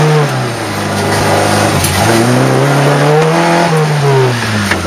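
Rally car engine heard from inside the cabin, revving up and down: the revs fall away about half a second in, climb again from about two seconds in to a peak, then drop off near the end.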